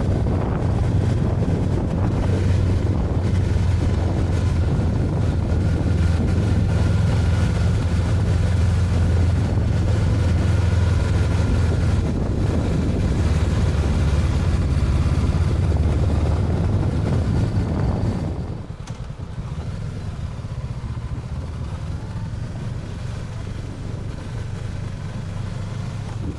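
Honda CB500X's parallel-twin engine running steadily under way, with wind rushing over the microphone; it gets quieter about eighteen seconds in.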